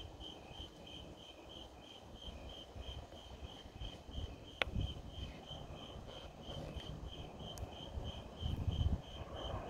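Crickets chirping steadily, about three evenly spaced chirps a second, with a fainter second cricket just beneath. A low uneven rumble runs underneath and swells near the end, and a single sharp click comes about halfway.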